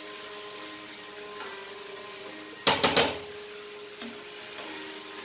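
Mutton curry sizzling in a nonstick kadai over a gas flame while it is stirred with a spatula. About two and a half seconds in, the spatula knocks sharply against the pan three times in quick succession, with a couple of lighter taps a little later.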